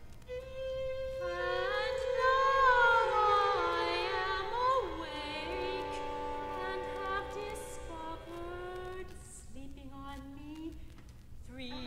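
Classical chamber music: a soprano singing with vibrato over bowed strings, voice and strings holding long notes. The music thins out and softens near the end before the strings come back in.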